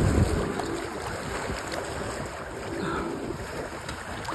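Sea waves washing on a beach with wind buffeting the microphone, and a faint steady motor hum underneath.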